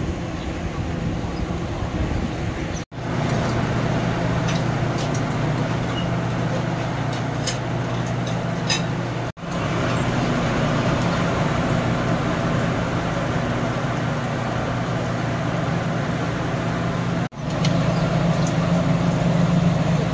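Steady street traffic noise with a low engine hum, broken off briefly three times.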